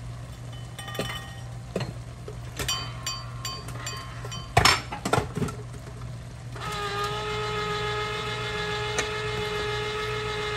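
Cooking utensils clink and knock against a pot, with the loudest knocks a little past the middle. Then a steady electric hum starts about two-thirds of the way in and carries on.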